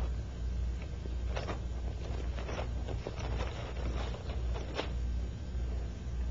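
Pages of a small Bible being turned and leafed through: a few short papery rustles between about one and a half and five seconds in, over a steady low hum.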